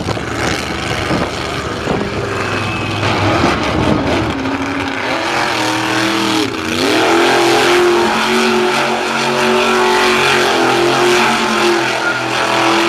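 Monster truck's engine revving hard: the pitch climbs, drops sharply about six and a half seconds in, then climbs again and holds at high revs.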